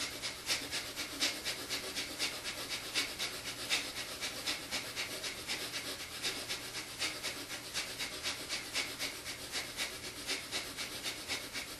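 Breath of fire: rapid, forceful exhalations through the nose in a fast, even rhythm of about three a second.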